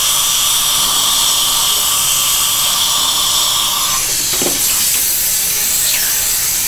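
High-speed dental handpiece grinding a tooth's biting surface, a steady high whine over an even hiss, reshaping a high spot on the back teeth to even out the bite. The whine drops away about four seconds in, and the hiss cuts off suddenly near the end.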